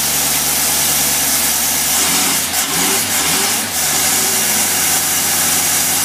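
Engine fed by a Rochester marine carburetor running under full load on a test rig, with a steady hum. Between about two and four seconds in, its pitch dips and wavers several times before settling steady again.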